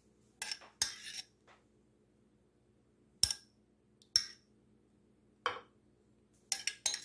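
A spoon clinking and knocking against dishes as tomato sauce is spooned out: about half a dozen short, sharp clinks spread apart, with a quick pair near the end.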